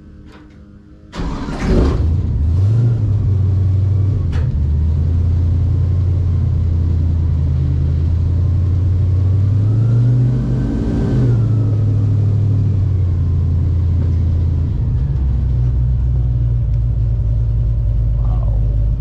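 Airboat engine and propeller starting up about a second in and running loudly, the pitch climbing shortly after and swelling up and back down once near the middle as the throttle is opened and eased.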